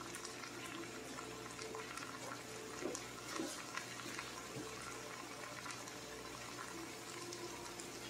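Vegetables cooking in an oiled skillet: a low, steady sizzle and hiss with scattered small pops as the cabbage and peas heat through.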